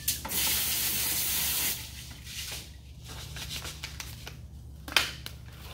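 Hose spray nozzle hissing for about a second and a half as it rinses aquarium canister-filter media. Then wet rubbing and handling of the plastic filter trays, with a sharp click about five seconds in.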